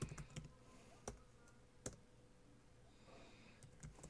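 Faint, sparse keystrokes on a computer keyboard: single clicks spaced about a second apart, then a quick run of several keys near the end.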